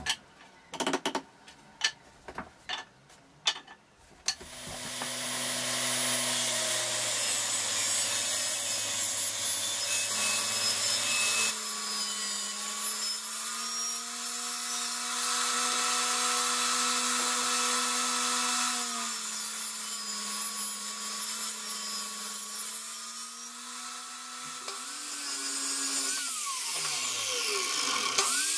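A few sharp knocks of hand work on a wooden frame, then a table saw starts and runs steadily, ripping wooden boards, its pitch shifting as the cuts go through. Near the end a saw motor's whine falls and rises again as a saw spins down and up.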